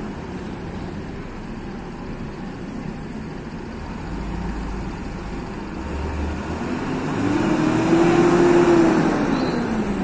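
Intercity coach's diesel engine pulling out and accelerating hard toward and past, growing louder over the second half. Its engine note climbs, holds, then drops as the bus passes close.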